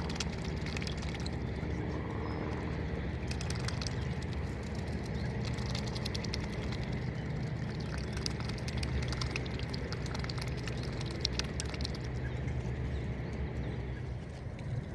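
Steady riverside ambience: a low rumble with faint water sounds and scattered small clicks and splashes.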